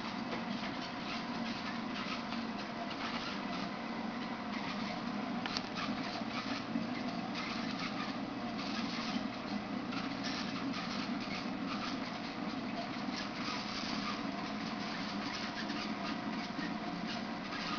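Steady hum and running-water noise of a saltwater aquarium's pumps and filtration, with faint crackling over it.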